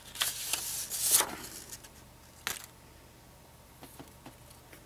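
Paper rustling as a red paper envelope is opened and a printed card slid out of it, busiest in the first second and a half, with one short sharp crackle about two and a half seconds in.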